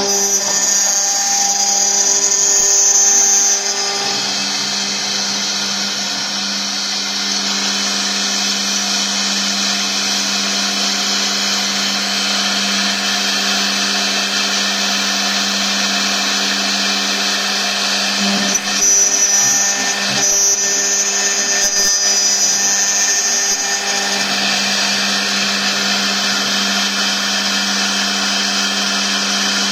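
CNC router spindle running steadily with its cutter machining aluminium: a steady hum with a dense hissing cutting noise over it. A higher whine joins in for the first few seconds and again about two-thirds of the way through.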